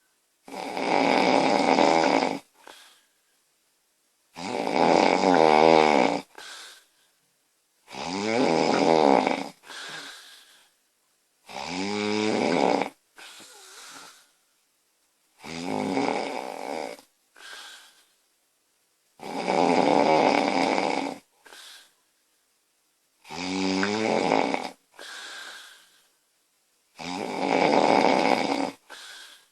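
A woman snoring loudly, eight long snores at an even pace of about one every four seconds, each followed by a softer, shorter breath sound.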